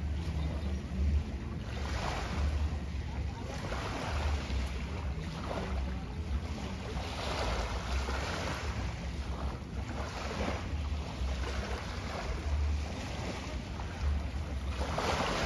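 Small waves washing onto the shore, swelling and falling every couple of seconds, over a steady low rumble of wind on the microphone.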